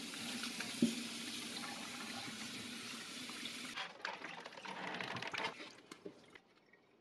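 Kitchen faucet's pull-down sprayer running steadily over raw chicken thighs in a stainless steel sink, with a single knock about a second in. The water shuts off a little past halfway, leaving light taps and rustles of a foam meat tray being handled.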